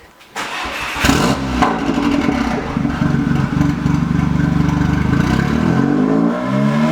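Car engine starting with a brief crank, catching about a second in and idling steadily, then revved in rising and falling blips near the end. The exhaust has a turbo whistle just fitted to the tailpipe, so the engine is being run to listen for the whistle.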